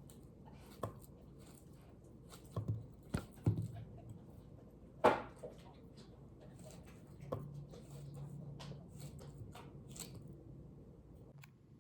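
Scattered knocks, taps and faint ticks in a small room, the loudest a sharp knock about five seconds in. A low steady hum comes in about seven seconds in.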